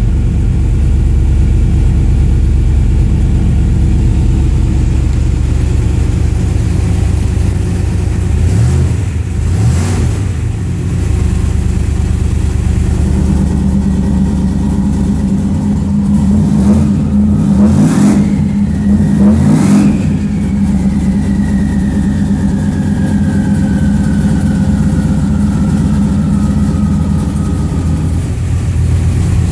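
Car engine running through an exhaust fitted with a 4-inch cutout, idling steadily. It is revved and falls back twice about nine seconds in, then three more times between about seventeen and twenty seconds in.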